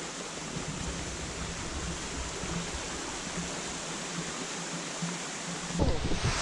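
Waterfall at close range: a steady rush of falling water. Near the end, louder gusts of wind buffet the microphone.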